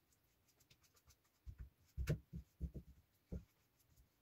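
A paintbrush working epoxy resin onto a 3D-printed plastic hull mould: a quick run of soft, low knocks as the brush dabs and the mould bumps on the table, the sharpest about two seconds in, with faint light ticks of the bristles between.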